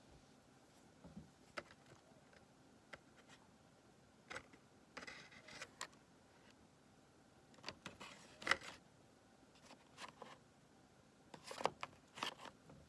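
Quiet handling sounds of hands on a paper colouring sheet on a wooden table: scattered light taps and clicks with a few short rustles, the sharpest tap about eight and a half seconds in.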